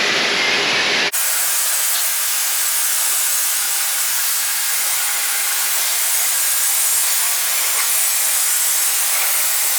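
Kärcher K2 pressure washer spraying water: a loud, steady hiss that turns brighter and thinner about a second in.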